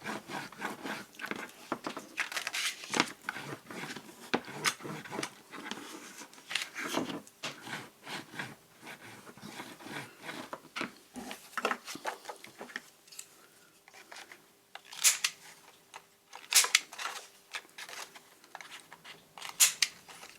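Paper and card rustling and clicking as they are handled, then a few sharp snips of scissors cutting card in the second half.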